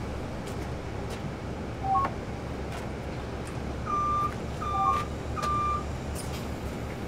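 Bus fare card reader beeping as passengers pay on boarding: a short rising two-note beep about two seconds in, then three higher single beeps in quick succession, over the steady low rumble of the bus interior.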